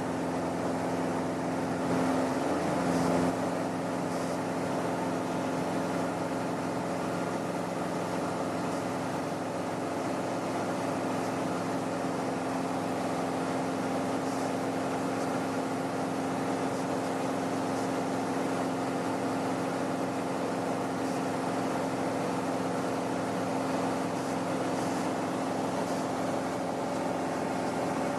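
Twin-engine Cessna's engines and propellers droning steadily in flight, briefly a little louder about two to three seconds in.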